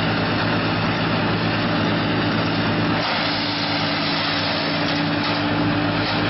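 Diesel mobile wood chipper running steadily: a constant engine hum under a loud, even rushing noise.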